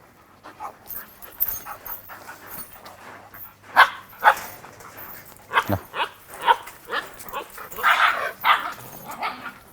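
German shepherd dog barking several times in short, separate barks, starting about four seconds in.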